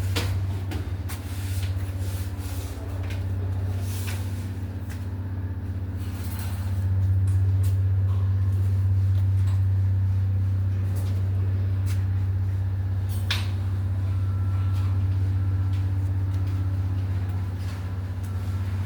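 A steady low machine hum, a little louder from about seven seconds in, with scattered clicks and knocks over it.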